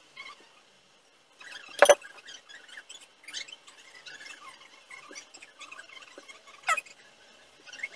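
Silicone pastry brush dabbing and spreading yogurt over dough in a metal baking tray: faint wet scrapes and taps, with two short high squeaks, one about two seconds in and a falling one near the end.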